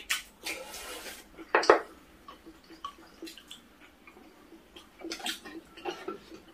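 Cutlery knocking against bowls and dishes, with one sharp knock about a second and a half in, among wet eating and slurping noises.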